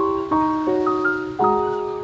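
Background music played on piano or electric piano: held chords struck in turn, a new one about every half second to second.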